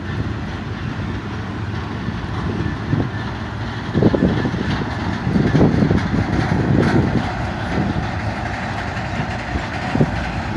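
Intermodal freight train's spine cars, loaded with highway trailers, rolling past on steel wheels. It makes a steady rumble and rattle that swells at intervals as the cars go by.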